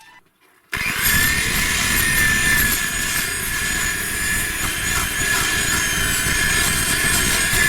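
A workshop power tool working metal starts abruptly about a second in and runs steadily and loudly, a rough grinding or cutting noise with a wavering high whine.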